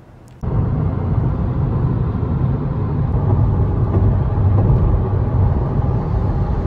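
Car driving at highway speed, heard from inside the cabin: a steady rumble of engine and tyres on the road. It comes in suddenly about half a second in after a faint stretch.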